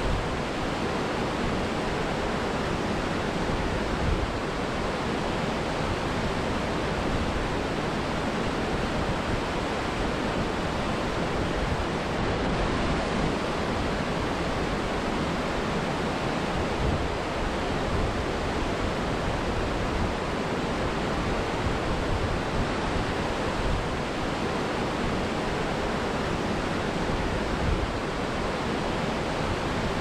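Small waterfall: water pouring and splashing onto rock in a steady, even rush.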